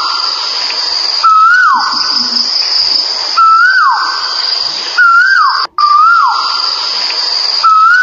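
Male Asian koel calling: a loud whistled note that rises slightly then drops sharply, repeated about five times. A steady high-pitched insect drone runs underneath.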